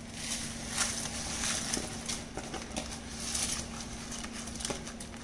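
Long-grain rice poured from a glass bowl into a pot of boiling water: an irregular patter of small ticks and taps over the hiss of the boil. A steady low hum runs underneath.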